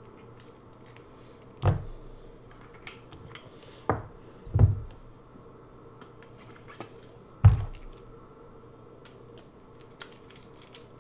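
Handling noise as a plastic lightsaber blade tube is fitted into a metal hilt: four dull knocks spread over the first eight seconds, then a few light clicks near the end as the blade is secured at the hilt.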